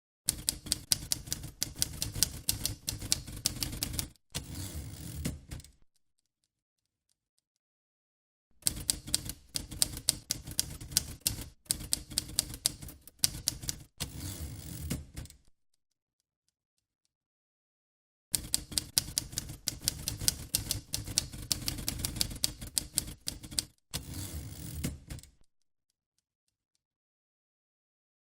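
Vintage typewriter typing: keys striking in quick runs of about four strokes a second. There are three runs of several seconds each, with silence between them, and each run ends in a short, softer stretch.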